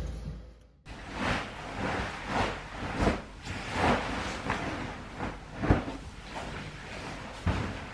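A duvet rustling and swishing in repeated sweeps as it is gathered, shaken out and spread over a bed, starting about a second in, with a couple of soft thumps.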